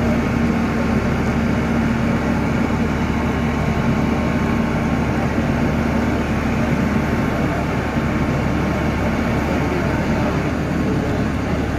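Mobile crane's diesel engine running steadily, a constant low rumble with a steady hum over it.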